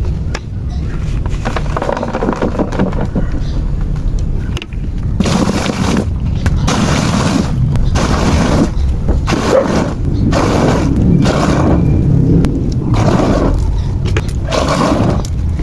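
Homemade thick-plastic hand washer worked in water and wet clothes: rhythmic sloshing strokes, about one a second, beginning about five seconds in after a quieter stretch of low handling noise.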